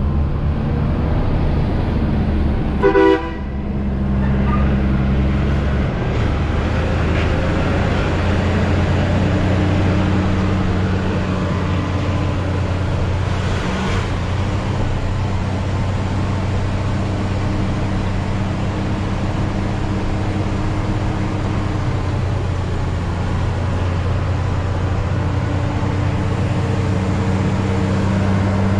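Hino 500 truck's diesel engine running steadily while driving, heard from inside the cab, with one short horn toot about three seconds in.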